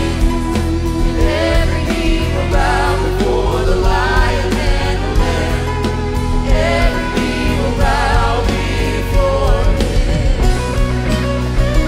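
Live worship band playing, with a woman singing the lead vocal over guitars, bass, drums and piano.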